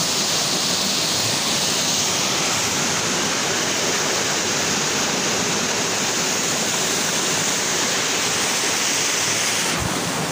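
Steady rushing of white water down a small rocky river cascade, stopping abruptly near the end.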